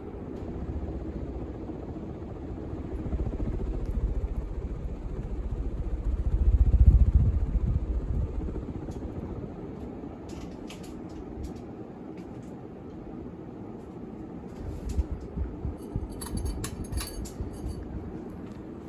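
Moss WF Series ceiling fan running on high: a steady low hum and rush of air, with wind buffeting the microphone that swells about seven seconds in. Light scattered ticks and clicks come in the second half. The fan's bearings are worn and make noise.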